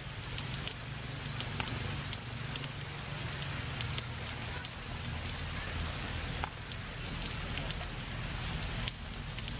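Heavy rain falling: a steady hiss dotted with many sharp drop ticks, over a steady low rumble.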